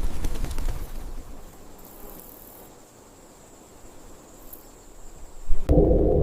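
Countryside field ambience: a steady high insect trill over soft outdoor noise, louder in the first second. Near the end a sustained, low ambient music drone starts abruptly.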